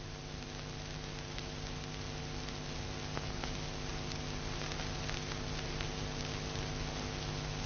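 Steady electrical hum and hiss from an old film soundtrack, with faint scattered crackles and no distinct sound event.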